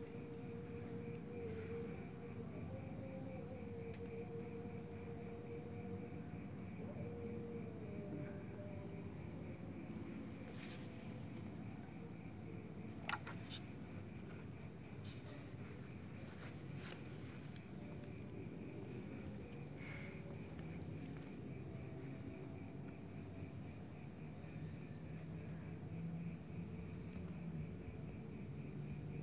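Crickets chirring in a steady, continuous high trill, with a few faint ticks from hands handling cloth.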